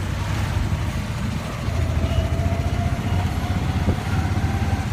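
Auto-rickshaw engine running while the rickshaw drives along, heard from inside its open cabin: a steady, pulsing low rumble with road noise. From about two seconds in, a faint whine rises slowly in pitch.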